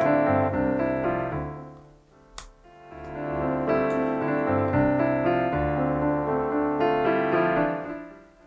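Background piano music in two gentle phrases, dipping briefly about two seconds in and fading near the end. A single sharp click sounds about two and a half seconds in.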